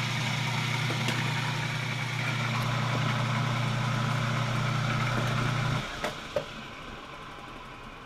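Salvaged washing-machine induction motor running under load, driving a lathe by belt, with a steady low hum; its centrifugal clutch is slipping and cannot fully engage, so the drum never comes up to speed. About six seconds in the hum cuts off abruptly, two clicks follow, and the machinery gets quieter as it winds down.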